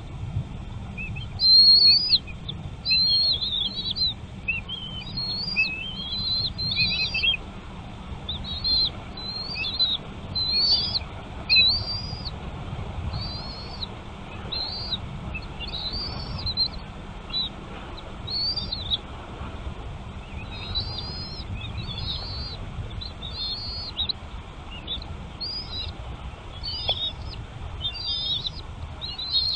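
Small birds chirping: a steady stream of short, high, quickly bending chirps, a few each second, over a low steady rumble.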